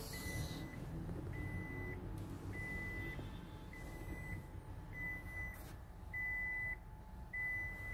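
An electronic warning beeper sounds a steady high tone about half a second long, repeating roughly every 1.2 seconds, over a low rumble.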